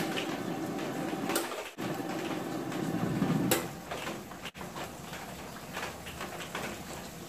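Gas wok burner running under an empty wok as it heats, a steady rushing noise that is louder for the first three or four seconds and then fainter. Two sharp knocks break through, about a second and a half in and again around three and a half seconds.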